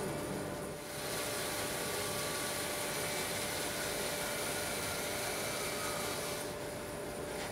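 Hammer N4400 bandsaw running and cutting through a thick walnut board: a steady hiss of the blade in the wood with a faint steady whine, settling in about a second in.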